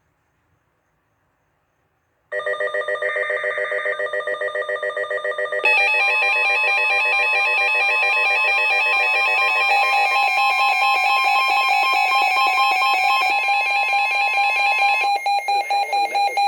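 Weather alert radio alarms going off for a received flash flood warning: loud, rapidly pulsing electronic beeping that starts about two seconds in. A second alarm joins about three seconds later and layers over the first, and one cuts out near the end.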